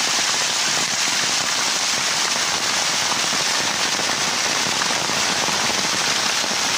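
Heavy rain with runoff water cascading down a stone wall and splashing, a dense steady hiss of water.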